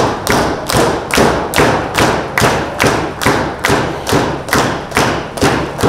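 A steady rhythmic beat of sharp thumps, about two and a half a second, in a large hall.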